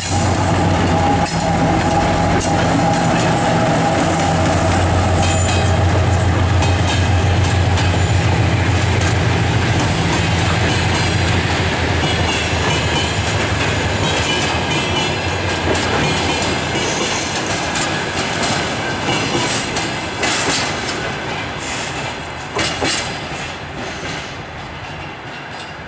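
2TE10U twin-section diesel locomotive's 10D100 two-stroke diesel engines running as it passes, a strong low hum that fades after about twelve seconds. The wagons of the work train then clack over the rail joints with some wheel squeal, growing fainter as the train moves away.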